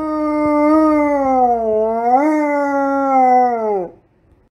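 Dog howling: one long, loud howl that sags in pitch, lifts again about two seconds in, then falls away and stops.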